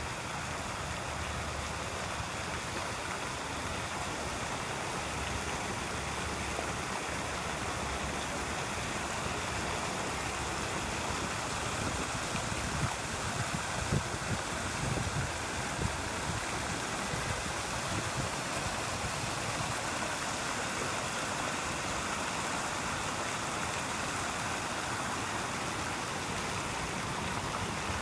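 Fountain water splashing and falling steadily, a constant rushing hiss. There are a few brief louder low bumps about halfway through.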